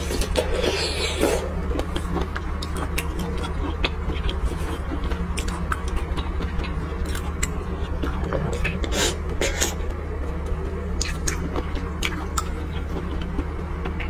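Close-miked eating of a sweet-and-spicy shrimp: wet biting, sucking and shell crackles, loudest about a second in, then scattered mouth clicks and sauce squelches as the shrimp is dipped. A steady low hum runs underneath.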